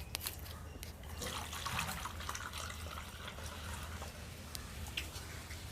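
Water splashing and trickling in a puppy's water container, loudest from about one to three seconds in, followed by a few small clicks and drips.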